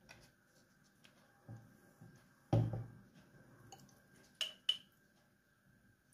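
Kitchen handling sounds: a few soft taps, then a dull knock about halfway through, followed by two quick clinks of a metal spoon against a glass jam jar.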